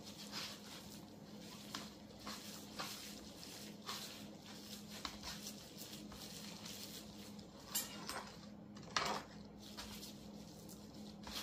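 Faint squishing and rustling of gloved hands rubbing seasoning into a raw beef chuck roast and turning it on a plastic cutting board, with a few light knocks, the loudest a little under eight seconds and about nine seconds in. A faint steady hum runs underneath.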